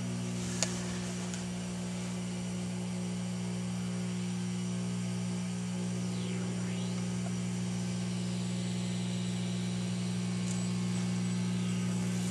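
Steady mains hum, a buzz built on 60-cycle harmonics, from the 1967 RCA CTC-28 tube colour TV chassis as it warms up after being switched on. A single sharp click sounds about half a second in.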